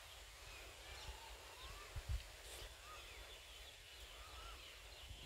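Faint birdsong: scattered short chirps and whistles from several birds, over a low rumble, with two brief low thumps about two seconds in.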